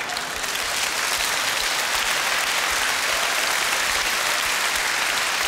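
A large theatre audience applauding steadily, a dense, even clapping that holds throughout.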